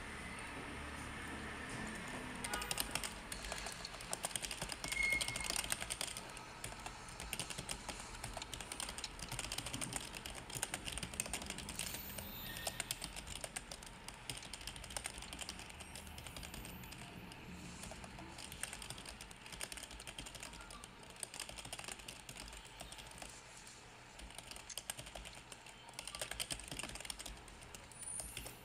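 Small plastic clicks, taps and rattles of a BMW F10 centre dashboard air vent assembly being handled and its parts fitted together by hand, in a dense irregular run like typing.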